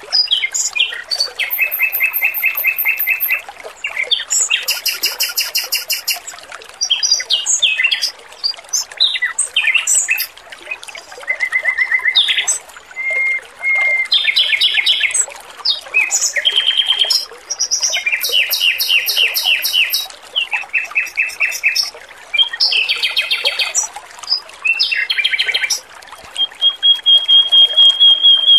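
Male Pekin robin (red-billed leiothrix) singing a run of fast trilled and rattling phrases with short pauses between them, ending on one long steady whistle. Trickling water runs underneath.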